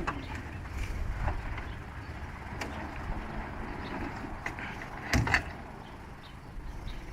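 Work vehicle's engine running low and steady, with scattered small clicks and knocks and a louder bang about five seconds in.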